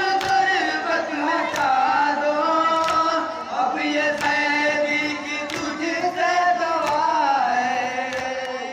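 A group of men chanting a Shia mourning lament (noha) in unison, in long held lines, while hands strike chests in matam as sharp slaps about once a second. The chanting fades near the end.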